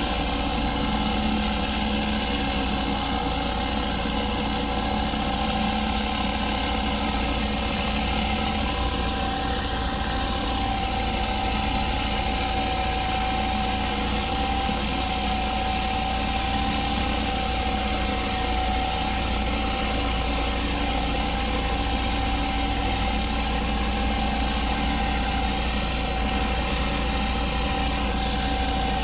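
Gas-engine pressure washer running steadily, with a steady whine over the engine note.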